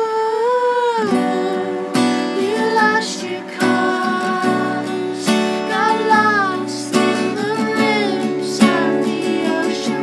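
Live acoustic song: strummed acoustic guitar under sung vocals, with long, wavering held notes in the melody.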